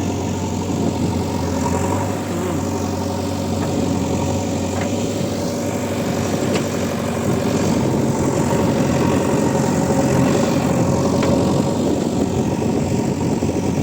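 Backhoe loader's diesel engine running steadily, getting a little louder in the second half.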